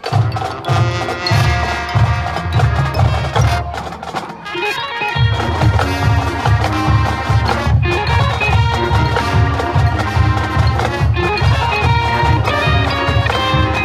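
Marching band with its front ensemble's drum set and keyboards playing a rock tune. The full band comes in all at once, with regular drum hits, and a heavier low bass line joins about five seconds in.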